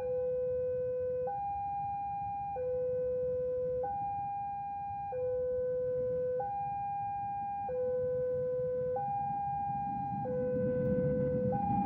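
A two-tone warning signal alternating evenly between a lower and a higher tone, each held about a second and a quarter. A low rumble grows under it near the end as a train draws near.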